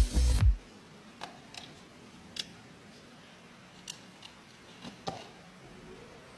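Background music that cuts off about half a second in, followed by a few faint, sharp clicks and taps at irregular intervals over a quiet background.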